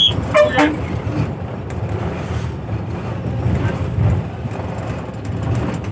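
A moving bus's engine and road noise heard from inside the cabin: a steady low rumble. About half a second in, a short high-pitched sound with a rapid flutter cuts across it.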